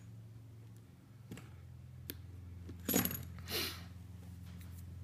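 A few sharp clicks of diagonal cutters snipping at the end of a coax cable, then a metallic clatter with a brief high ring about three seconds in as the cutters are set down, followed by a short softer scrape.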